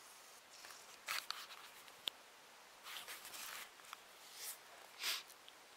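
Faint, intermittent rustling and scraping of clothing and gear handled close to the microphone, with a sharp click about two seconds in.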